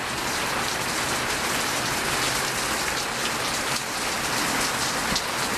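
Heavy rain pouring down: a steady, even hiss of drops striking the ground and nearby surfaces.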